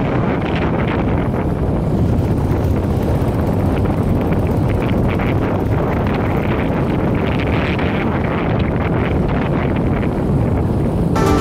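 Wind buffeting the microphone on a moving motorcycle, a steady low rumble with the bike's engine and road noise underneath.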